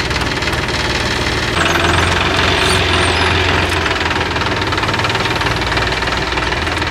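John Deere combine harvester's diesel engine and machinery running steadily, growing louder for a couple of seconds about a second and a half in before easing back.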